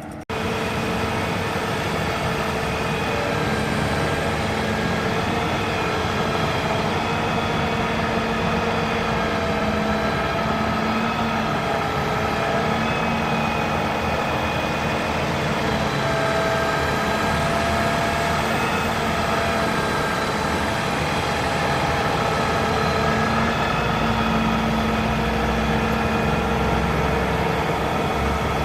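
Heavy diesel engine running steadily, with several steady tones over its low hum. It cuts in abruptly at the start.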